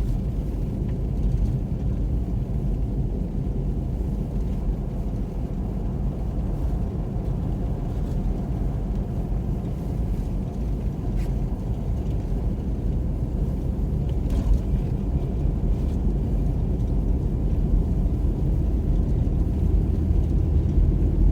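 Car driving slowly on a snow-covered road, heard from inside the cabin: a steady low rumble of engine and tyres.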